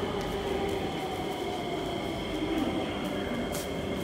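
Singapore MRT train running at the station: a steady rail rumble with several high, level whining tones over it.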